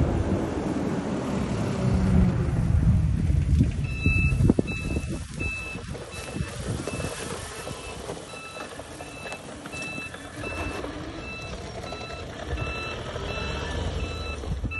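Electronic warning beeper sounding a short high beep about twice a second, starting about four seconds in, over the low rumble of the electric ATV moving through the grass, which is loudest at the start.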